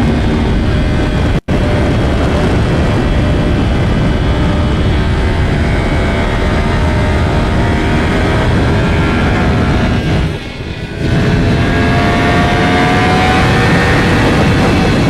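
Yamaha R1M's crossplane inline-four running under way through its custom aftermarket exhaust, the engine note rising and falling slowly as the rider works the throttle. The sound dips briefly about ten seconds in.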